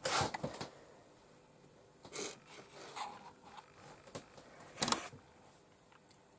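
About five short, dry rustling scrapes of a watercolour brush and hand working over cotton watercolour paper, the loudest about five seconds in.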